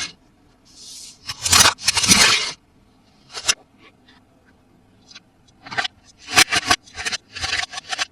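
Toys and their packaging being handled: a few loud scrapes and rustles early on, then a quick run of sharp clicks and short scrapes near the end.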